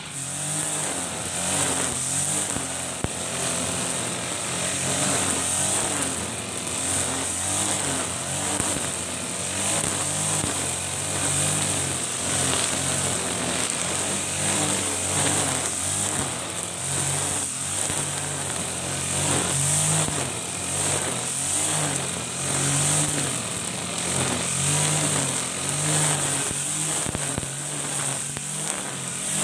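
Ogawa GX35 four-stroke brush cutter running under load, its nylon trimmer line cutting grass. The engine speed wavers up and down as the throttle and cutting load change, over a steady high hiss from the spinning line.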